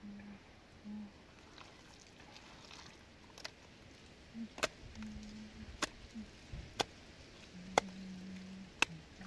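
A series of sharp knocks, about one a second, starting a little over three seconds in, with short stretches of a low steady hum between them.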